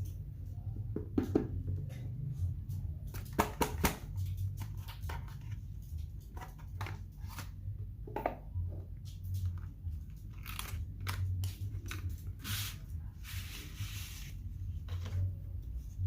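Smartphone retail box and packaging being handled: scattered clicks, taps and light scrapes, with a longer rustling stretch about twelve to fourteen seconds in. A steady low hum runs underneath.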